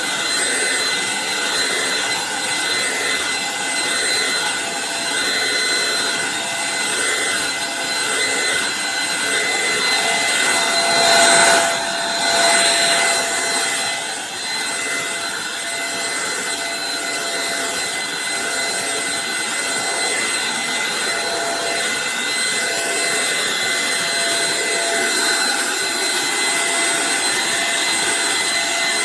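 Eureka NES215A Blaze stick vacuum running steadily, a dense rush of air with a high motor whine, briefly louder for a second or so about eleven seconds in.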